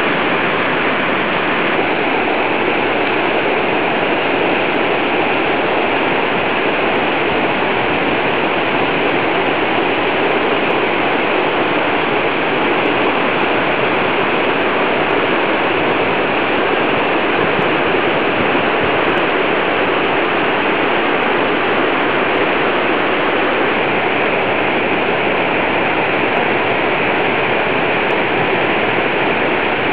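Pellice mountain torrent rushing: a loud, steady wash of fast-flowing water with no change throughout.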